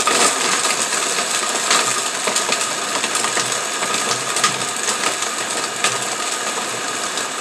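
Countertop blender running on high, blending a thick berry smoothie with chunks of ice that are not yet fully crushed. Scattered sharp knocks from the ice rattling in the jar sound like rocks.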